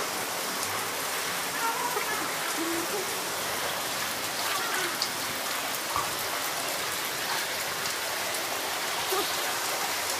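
Floodwater flowing fast and splashing: a steady rush of water.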